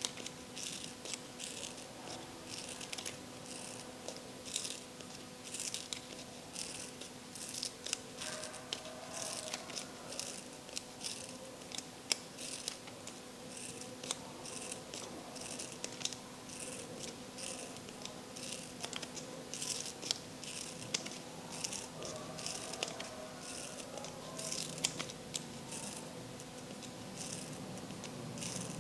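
Scissors snipping through craft paper over and over, roughly one or two short cuts a second, as a fringe is cut into a paper strip. A faint steady hum runs underneath.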